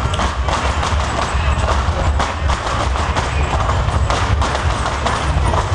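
Sevillanas music with flamenco dancers' shoes stamping and tapping rhythmically on the stage floor.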